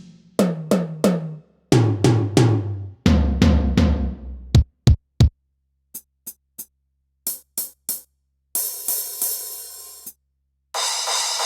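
Turbo Electronic TDX-16 electronic drum kit played on its GM Room kit: a fill of tom strikes stepping down in pitch from high to floor toms, a few sharp hits, a handful of short high taps, then two crashes that ring and fade, the second near the end.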